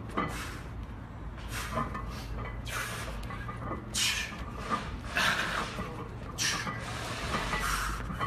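Hard, forceful breathing under a 226 kg farmer's-walk load: short hissing exhales about every second and a bit, over a low steady rumble.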